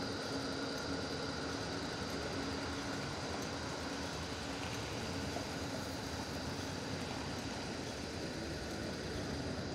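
Steady city street traffic noise, with a faint steady whine running underneath.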